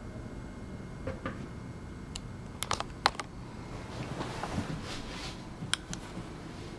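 Scattered light clicks and taps, a quick cluster of them about a third of the way in, then a stretch of scratchy rustling: kittens pawing and scrabbling with their claws on a plush-covered cat tree.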